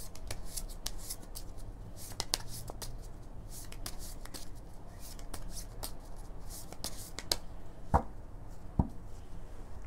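A tarot deck being shuffled by hand: a continuous run of quick card flicks and riffles, with two louder knocks near the end.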